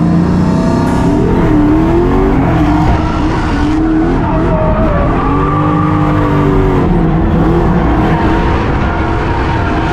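Drift car's engine heard from inside the cabin, its revs rising and falling through the slide, with tires squealing on the track.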